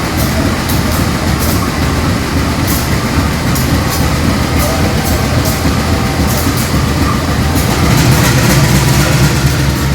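GE diesel-electric locomotive's engine running under load as the train pulls away, a heavy low rumble that grows louder about three-quarters of the way through, with a run of sharp clicks over it.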